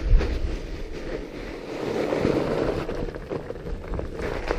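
Fat bike's 4.5-inch tyres rolling and crunching over snow, with wind rumbling on the microphone and scattered small clicks and knocks from the bike.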